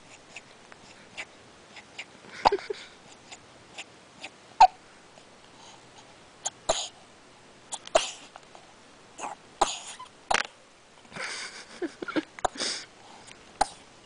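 A baby hiccuping: about seven sharp, short hiccups, one every second or two, with breathy coos and sounds between them, a longer breathy stretch near the end.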